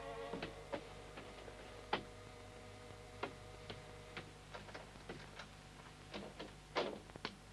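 Footsteps, irregular at first and then about three a second, with a louder knock near the end. A held music chord fades out just at the start.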